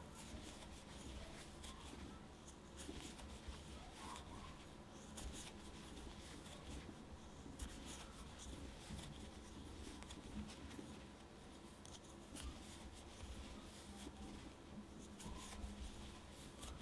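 Faint rustling and scratching of chunky yarn being worked with a large crochet hook, the hook scraping through the loops, with many small irregular clicks.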